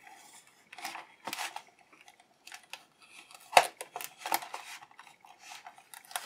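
Craft knife blade cutting and scraping around the edge of a plastic blister on a cardboard toy card: irregular short scratches and crackles, with a sharper click about three and a half seconds in.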